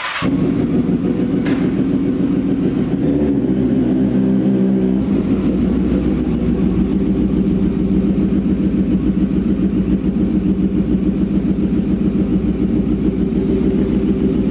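Honda CBR954RR's inline-four engine running. Its pitch shifts over the first few seconds, then it settles into a steady, evenly pulsing idle.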